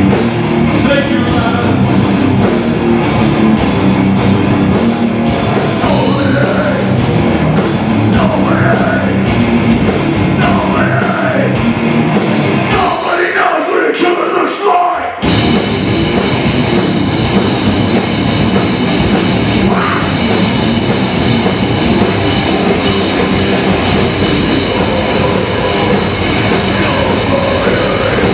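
Heavy metal band playing live and loud: distorted electric guitars, bass and drum kit with vocals over them. About halfway through the bass and drums drop out for a couple of seconds, then the full band comes back in at once.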